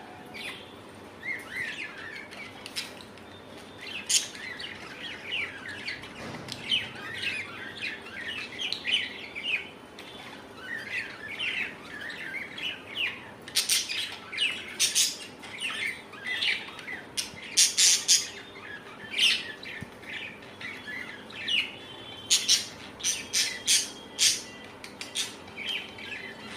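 Baby budgies chirping and chattering continuously, with sharper, louder bursts clustered in the second half.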